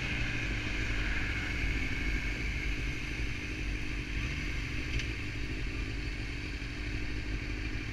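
Honda CBR 600 sport bike's engine running at low speed as the bike rolls up to stopped traffic. Wind noise on the camera microphone eases as it slows.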